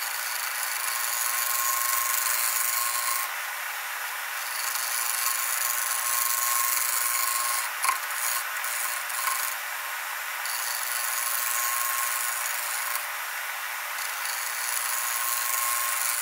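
Wood lathe with a tool shear scraping the side of a spinning spalted beech bowl blank: a steady scraping, its top end brightening and dulling every few seconds as the edge meets and leaves the wood.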